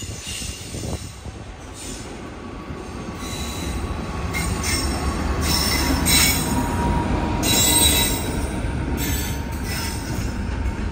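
A WAP-7 electric locomotive hauling Tejas Express coaches passes slowly, its wheels giving a steady low rumble on the rails that grows louder as the locomotive draws level about six seconds in. Repeated short bursts of high-pitched wheel squeal sound over the rumble.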